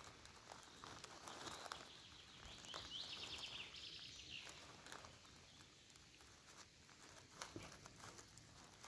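Faint footsteps on forest floor, with scattered sharp cracks and rustles of twigs and leaf litter underfoot. About three seconds in, a bird gives a quick trill of rapidly repeated high notes lasting a second or two.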